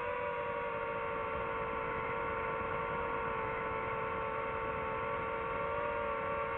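DJI FPV drone's motors and propellers whining steadily in flight: one even, pitched hum with overtones, holding nearly the same pitch throughout.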